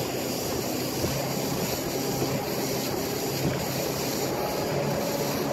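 Duck boat's motor running steadily at speed, a constant drone, with a steady rush of wind and water.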